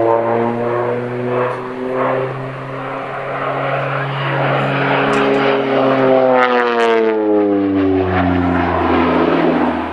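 North American OV-10 Bronco's twin turboprop engines and propellers droning steadily through a display pass. The pitch drops sharply about seven seconds in as the aircraft goes by.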